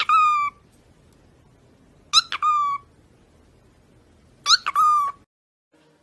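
Conure calling three times, about two seconds apart: each call is a short clear note that rises sharply and then holds steady for about half a second.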